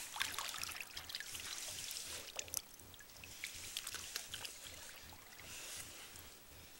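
Water splashing and sloshing in a galvanised metal tub as feet in snowboard boots tread and stamp in it, busiest in the first two or three seconds and then settling to gentler sloshing.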